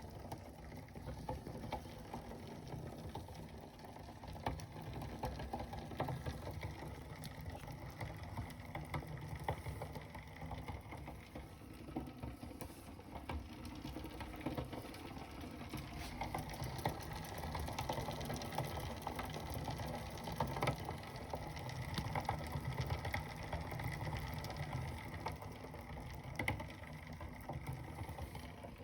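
Bicycle pedalled on an Elite Suito direct-drive trainer: a steady low hum from the trainer, with irregular clicking and ticking from the crank and 10-speed cassette. This is a strange noise that is heard only on the trainer and not when the bike is ridden normally.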